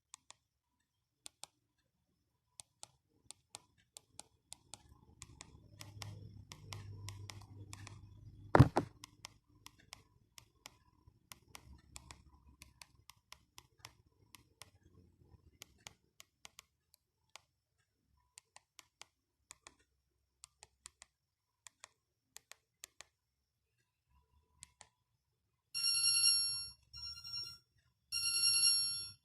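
Sharp clicks about once or twice a second, with one much louder knock about a third of the way in, from an Alcatel One Touch 1013D mobile phone being handled and its keys pressed. Near the end, one of the phone's built-in ringtones starts playing through its small speaker in short repeated phrases of high tones.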